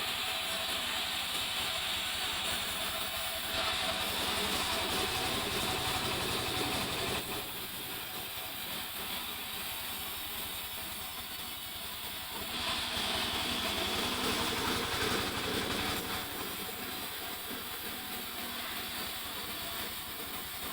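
Sawmill saw running and cutting mahogany logs, a steady mechanical drone with a hissing whine. It gets louder twice for about four seconds at a time, as the blade passes through the wood.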